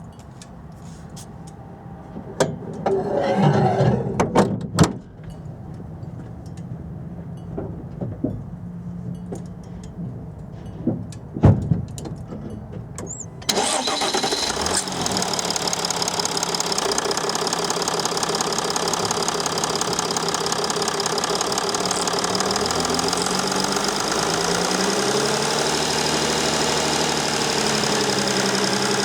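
Mercedes Sprinter 219 CDI V6 diesel engine running, with a few knocks and clunks in the first half. About halfway through it suddenly becomes much louder and harsher, and near the end its speed rises and falls a few times.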